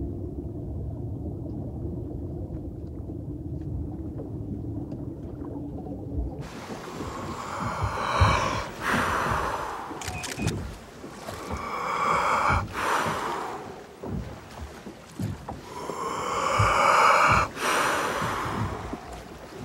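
Muffled low underwater rumble. About six seconds in it gives way to a freediver at the surface taking deep, drawn-out breaths, three long breaths about four seconds apart: the breathe-up before a deep sled dive.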